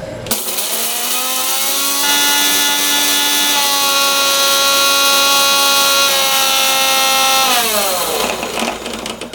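Electric mixer grinder (mixie) grinding dry cumin seeds to a powder. Its motor whine rises as it spins up, runs steady, then winds down near the end.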